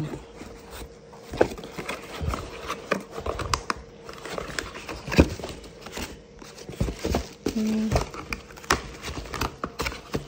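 Hands rummaging through a shipping box of boxed candles: plastic air-pillow packing and paper crinkle and rustle while cardboard boxes knock and scrape, with irregular sharp knocks throughout.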